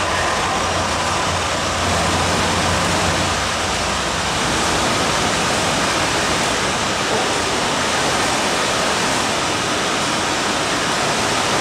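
Steady rushing noise of an underground metro platform just after a diesel engineering train has passed, with a low rumble from the departing train fading out in the first few seconds.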